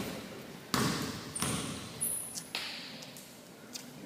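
Basketball bouncing on a hardwood gym floor a few times, each bounce ringing on in the hall, with short high sneaker squeaks in between.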